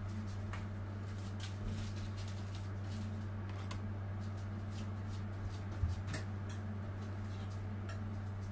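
A steady low hum, with a few faint light taps and clicks from fondant cake decorations being handled and set in place; one tap stands out a little about six seconds in.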